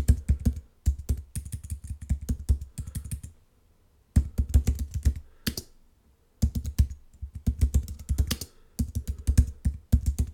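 Computer keyboard typing in quick bursts of keystrokes, with two short pauses about three and a half and six seconds in.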